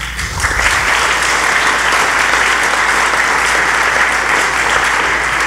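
Audience applauding, a steady wash of many hands clapping that starts about half a second in.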